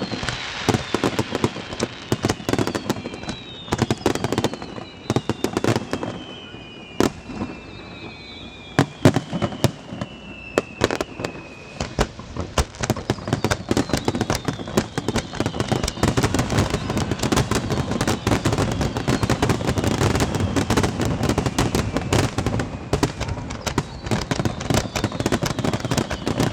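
Aerial fireworks display: shells bursting in a rapid, irregular series of bangs and crackles, with several high falling whistles in the first half. From about halfway the barrage thickens into dense, continuous crackling.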